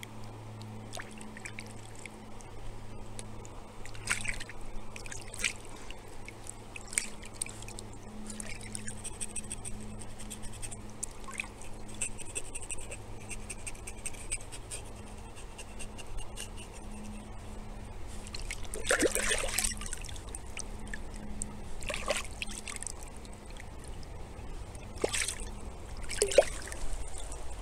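Shallow stream water trickling steadily, with splashes now and then as hands work a trout in the water; the biggest splash comes a little after the middle.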